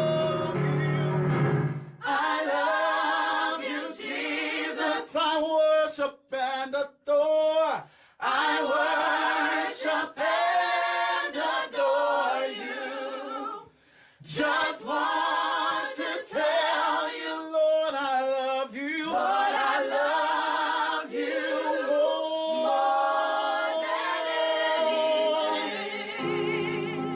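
Gospel vocal group singing in close harmony. The keyboard drops out about two seconds in, leaving the voices unaccompanied, and comes back near the end.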